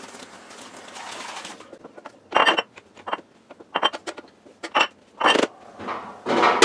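Kitchen faucet running briefly, then several sharp clinks and knocks of ceramic bowls being handled and set down on a stone countertop, with the tap running again near the end.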